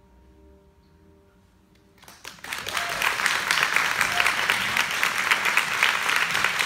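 The last chord of a vibraphone rings quietly and fades. About two seconds in, audience applause breaks out and keeps going loudly.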